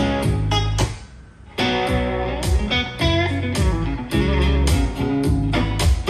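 Blues song with electric guitar and a steady drum beat, played back through a Harman/Kardon Aura Studio speaker. The band drops out briefly about a second in, then comes back in full.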